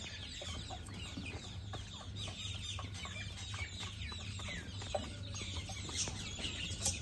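Several rose-ringed parakeets chattering: a dense, unbroken stream of short, high, falling chirps and squawks, over a steady low hum.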